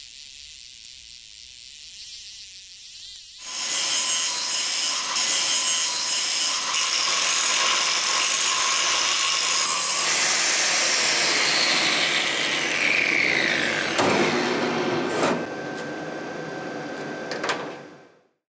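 A handheld grinder grinding metal, a loud steady hiss with a whine that falls in pitch around the middle. A few sharp knocks come near the end, and a high hiss leads in before the grinding starts.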